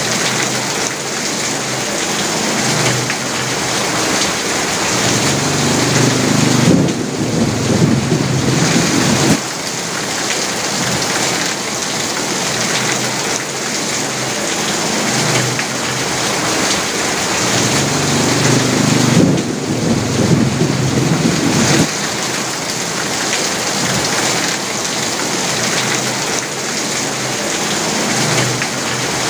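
Heavy rain drumming steadily on an asbestos (fibre-cement) sheet roof. Twice a low rumble of thunder swells for about three seconds, about a quarter of the way in and again about two-thirds through.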